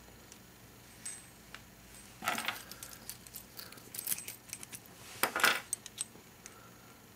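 Metal keys, small tubular locks and a pick clinking and rattling as they are handled, in scattered light clicks. There is a louder jangle just after two seconds in and another just after five seconds.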